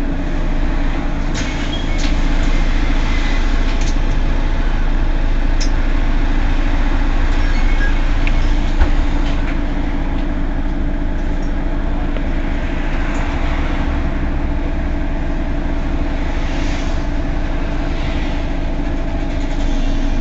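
Mercedes-Benz Citaro G C2 articulated bus running, its engine a steady drone with scattered clicks and rattles. It grows louder about two seconds in and eases back slightly after about nine seconds.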